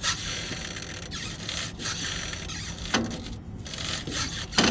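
Metal scraping and rubbing as parts of a bump grinder's coupler are worked loose by hand, with a few sharp knocks: one at the start, one about three seconds in and one near the end.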